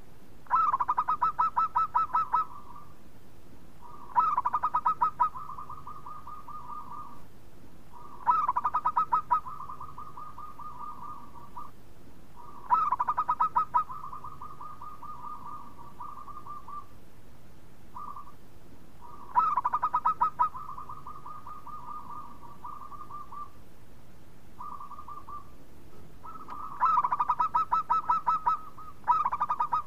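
Zebra dove (perkutut) singing its cooing song. Six phrases a few seconds apart, each a quick run of staccato notes that trails into a longer held note, with a longer pause midway.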